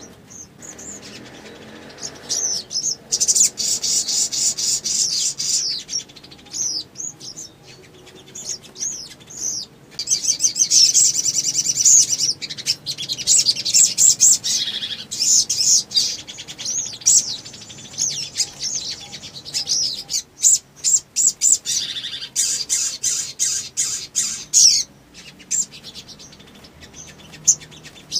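A male olive-backed sunbird (sogon) singing in long bouts of rapid, very high-pitched chirps and twittering trills, with short pauses between bouts. This is the long, excited 'nembak panjang' song that keepers play to provoke other sunbirds into singing.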